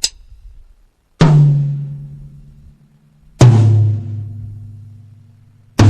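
Premier Genista birch toms struck one at a time, three single strokes about two seconds apart, each left to ring out with a clear pitched tone that steps lower from one drum to the next. A short sharp click comes just before the first stroke.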